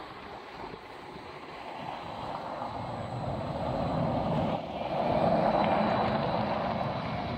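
VDL Citea battery-electric city bus driving past on brick paving: a rolling tyre noise that swells as it comes close, loudest a little past halfway, then eases as it moves away, with a faint high whine in the later part.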